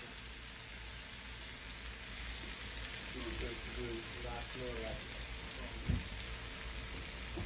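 Green beans and onions sizzling in a stainless skillet, a steady hiss as they finish in the pan's leftover heat after the burner has been switched off. A single low thump comes about six seconds in.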